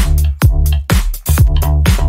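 Upbeat electronic dance music with a steady kick drum beating about twice a second over a pulsing bass line.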